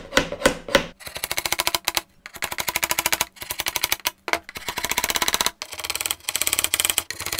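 Claw hammer tapping small panel pins into a wooden cupboard-door frame: a few separate strikes about three a second, then from about a second in, runs of very rapid light taps, each run about a second long with short pauses between.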